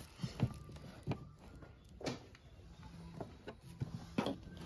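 Several light, scattered knocks and clicks, about six, as a plastic rubbish bin hung on a cabinet door is handled and bumped.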